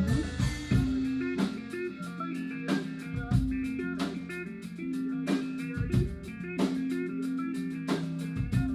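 Rock band playing live: a distorted electric guitar riff of held notes over a drum kit keeping a steady beat.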